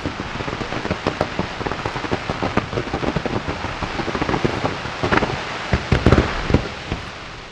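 Aerial fireworks going off: a dense, rapid crackle of many small pops, with a few louder bangs past the middle, dying away near the end.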